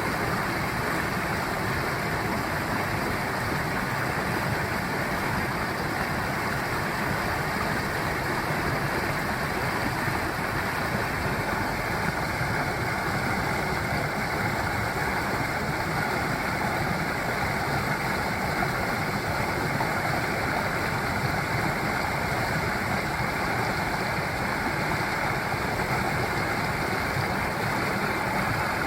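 Mountain valley stream flowing, a steady rushing of water that holds an even level throughout.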